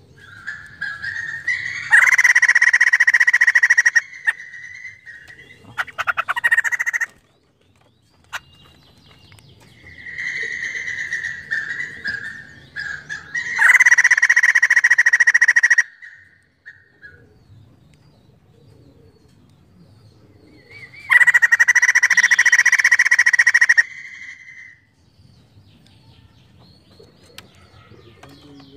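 White-crested laughingthrush singing: softer calls build into three loud bursts of rapid song about two seconds long each, one near the start, one about halfway through and one about two-thirds through.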